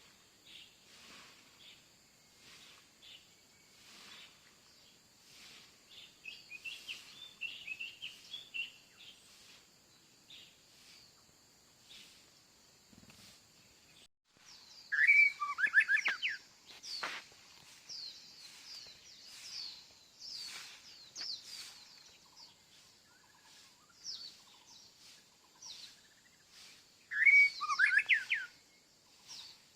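Several wild birds chirping and singing. Many short high chirps run throughout, with louder bursts of rapid song notes about halfway through and again near the end.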